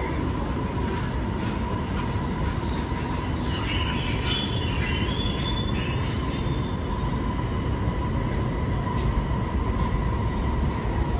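Inside the cabin of an Alstom Movia R151 metro train running between stations: a steady low rumble of wheels on rail with a steady whine. A brief high wheel squeal comes in about four seconds in.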